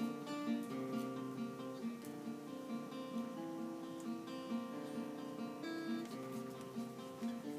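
Acoustic guitar music, plucked and strummed, with a repeating figure of notes.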